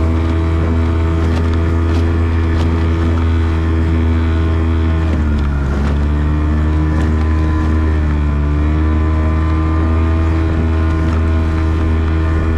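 Outboard motor running steadily, driving an inflatable boat across open water. The engine note dips briefly about five seconds in, and again a few seconds later, before settling back.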